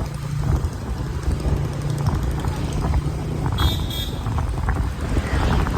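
Steady low rumble, with two short high beeps a little past halfway.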